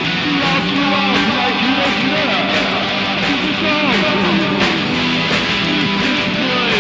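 Background rock music with guitar, playing steadily.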